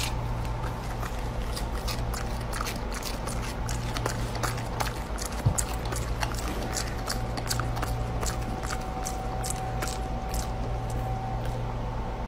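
Steady low room hum with a faint steady tone, under many scattered small clicks and ticks. There is one sharper knock about five and a half seconds in.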